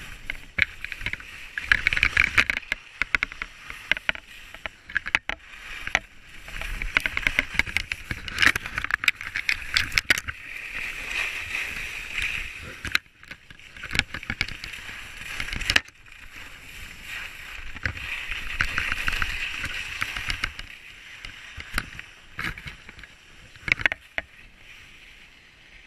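Skis scraping and hissing over packed snow while skiing downhill, the sound swelling and fading every few seconds, with scattered sharp clicks and knocks.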